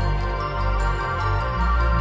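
Electronic music: sustained chords over a deep bass.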